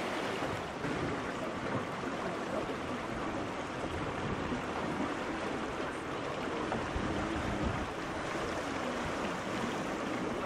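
Steady rush of water along the hull of the steam yacht Gondola under way.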